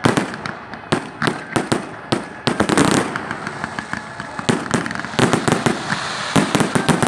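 Aerial fireworks going off in quick succession: many sharp bangs and cracks, bunched into a dense crackling volley about two and a half seconds in and another cluster near the end.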